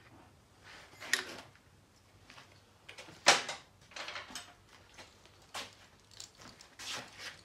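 A handful of irregular knocks and clatters of hard objects, the loudest about three seconds in.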